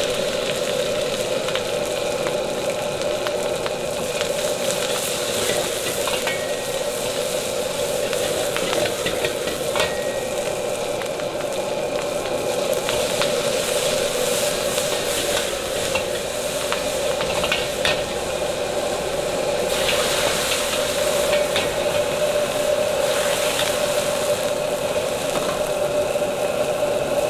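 Sliced garlic, chili, onion and scallion whites sizzling as they are stir-fried in a carbon-steel wok, with a metal ladle scraping and ticking against the wok. A steady drone runs underneath.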